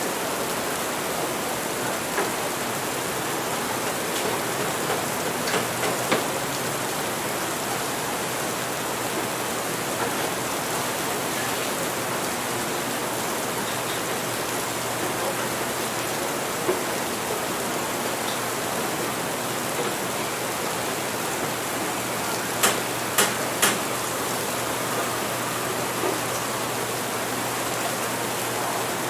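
Steady rain hiss with scattered light clicks, and a quick run of three sharp clicks near the end.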